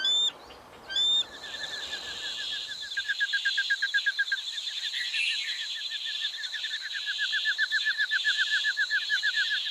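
Two short, loud bird calls about a second apart, then a steady chorus of rapid trilling with a high, even buzz above it.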